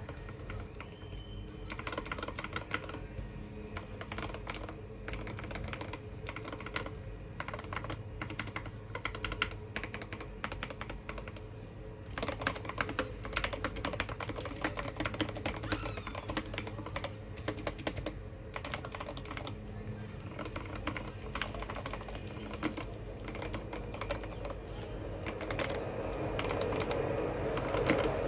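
Modded Keychron K8 tenkeyless mechanical keyboard being typed on: a continuous run of quick, irregular keystroke clicks over a steady low hum.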